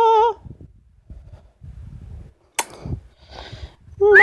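Double yellow-headed amazon parrot singing a long, warbling operatic "oh" note that ends just after the start. About two and a half seconds in there is a single sharp click, followed by a short breathy rasp. A new warbling note begins near the end.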